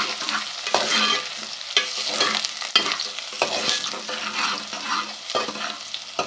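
Chopped onion frying in hot ghee, sizzling as it is stirred, with short strokes of the stirring about once a second.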